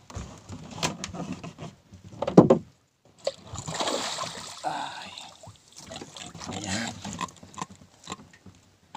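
A large fish pulled in on a hand line, splashing and thrashing in the water alongside a small wooden boat before it is swung aboard. Irregular knocks of line and gear against the hull, with one loud thump a little over two seconds in and a long burst of splashing about a second later.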